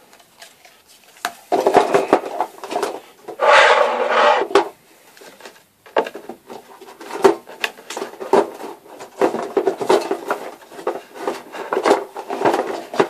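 Plastic slime containers being handled and stacked on a table: a run of clattering knocks and clicks, with two longer, denser spells of clatter about two and four seconds in.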